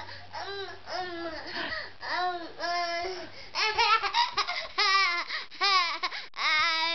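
A 16-month-old toddler giggling and squealing in a string of short, high-pitched bursts. They come faster and louder from about halfway through, and end in a longer squeal.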